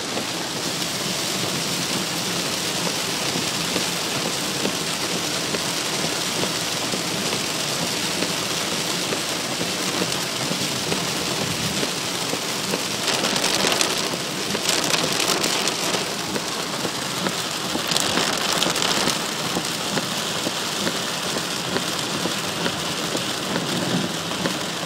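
Torrential rain pelting a car's roof and windshield, heard from inside the moving car as a dense, steady hiss. It swells louder for a few seconds about halfway through and again briefly a few seconds later.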